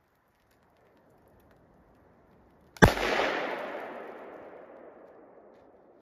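A small plastic soda bottle loaded with aluminium foil and Krot drain cleaner bursts from the hydrogen pressure the reaction has built up: one sharp bang about three seconds in, after near silence, followed by a rushing sound that fades over about two and a half seconds.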